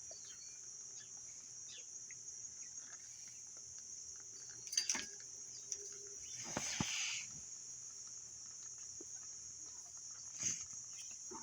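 Kittens playing: scattered light clicks and scuffles, a sharp click about five seconds in and a louder rustle a second or so after it, over a steady high-pitched hiss.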